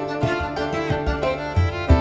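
Background music with strings and a steady beat.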